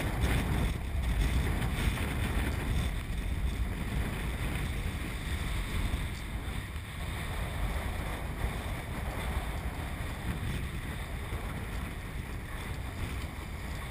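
Wind buffeting the microphone over water rushing and splashing along the hull of a small wooden kite boat sailing through choppy sea.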